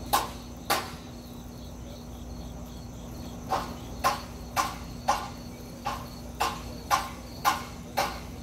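Sharp, short knocks: two near the start, then a run of about eight at roughly two a second. Under them, insects chirping steadily and a steady low hum.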